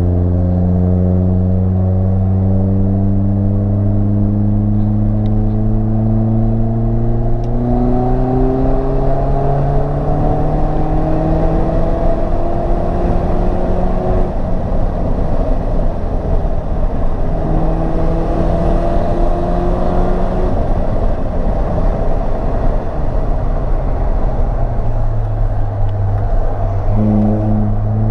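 Mercedes SLK R170 with an aftermarket exhaust, heard from inside the cabin, accelerating hard: the engine note climbs steadily for the first half. Then road and wind noise take over as it slows, and a lower engine note comes back near the end.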